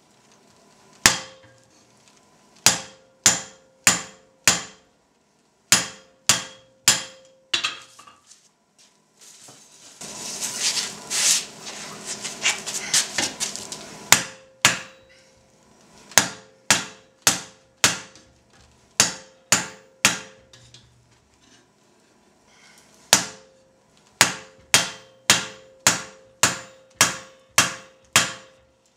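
Hand hammer forging red-hot steel on an anvil: runs of sharp blows, about two a second, each leaving a short ring from the anvil, with pauses between the runs. Midway there are about four seconds of harsh noise instead of blows.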